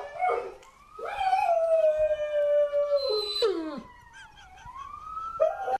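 A dog howling, set off by a high-pitched voice clip playing on the radio: one long howl starting about a second in that drops away at its end, then a quieter howl rising in pitch near the end.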